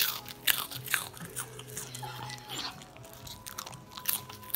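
Cairn Terrier crunching and chewing prawn crackers: a run of irregular, crisp crunches, loudest in the first second and again near the end.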